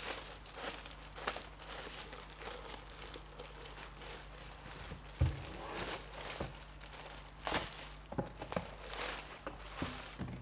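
Packaging being crinkled and rustled as a laptop is unwrapped from it, in irregular handling sounds, with a soft thump about five seconds in.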